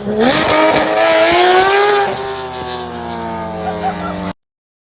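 Porsche 911 GT3 RS flat-six with a JCR aftermarket exhaust, revving up sharply and then held at high revs, easing off slightly about halfway through. The sound cuts off abruptly near the end.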